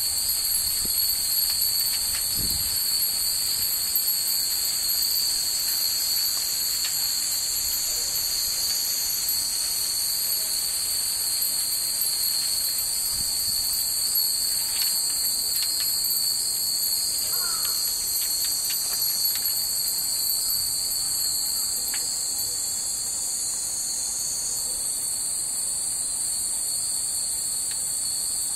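A steady, loud chorus of summer cicadas buzzing high and unbroken, with faint scattered tinkles from hanging Japanese wind chimes (fūrin) swaying in the breeze.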